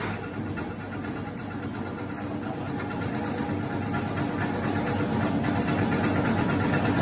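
Electric bread slicer running empty, its motor and reciprocating blade frame giving a steady mechanical hum that grows gradually louder.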